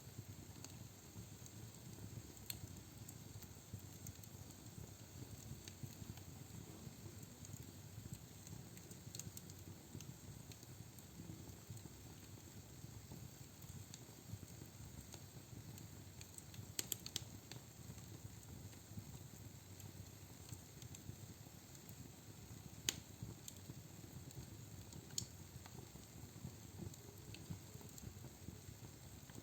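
Logs burning in a fireplace: a faint, steady low rumble of flame with sparse sharp crackles and pops, a quick cluster of them just past halfway and the loudest single pop about three-quarters of the way through.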